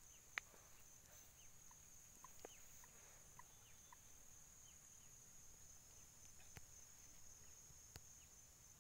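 Near silence: a faint, steady, high-pitched insect drone, with a few faint short chirps in the first half and a few small clicks.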